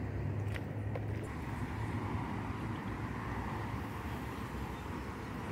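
Road traffic running steadily in the background, a low rumble with a vehicle swelling past in the middle.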